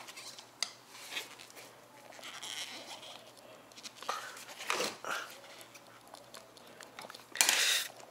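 Tire levering on a 10-inch electric scooter wheel: a steel bar and flathead screwdriver prying a stiff tube tire's bead over the rim, giving scattered scrapes and clicks, with a louder half-second scrape near the end.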